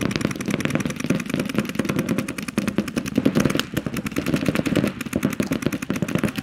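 Paintball markers firing rapid, continuous strings of shots, many a second, in a steady rattle that swells and dips in loudness.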